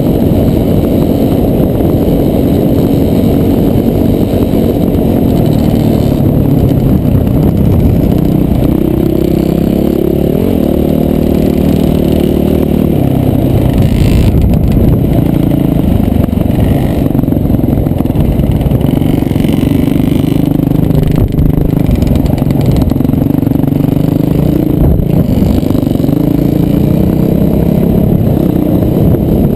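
Off-road motorcycle engine running hard under way, its pitch climbing and dropping several times as the throttle and gears change. Heavy rumble of wind and road noise over the helmet-mounted camera.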